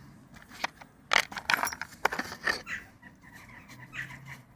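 Old hand tools being handled and set down: a series of short metal clicks and knocks, irregular and spread through a few seconds.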